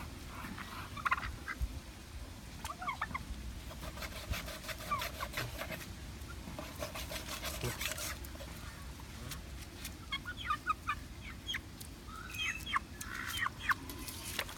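Farmyard poultry calling: short, high calls scattered throughout, bunching into quick runs about ten and thirteen seconds in, over a low rumble.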